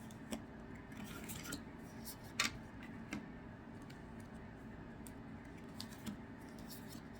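Scissors snipping into a trading-card booster pack, with the wrapper crinkling. There are a handful of short, sharp snips and rustles, the loudest about two and a half seconds in.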